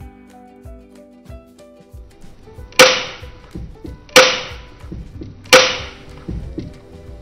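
Background music with three loud, sharp cracks, evenly spaced about a second and a half apart, each one ringing off briefly.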